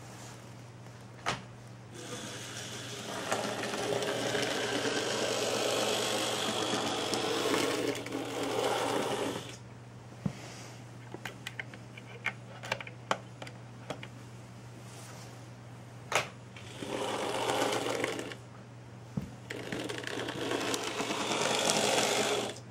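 N gauge model freight train running on the track: the small motor whirring and the wheels rattling along the rails in two stretches of several seconds. Between them the train stops, and sharp clicks and taps are heard as the stock is handled on the track. A low steady hum runs underneath.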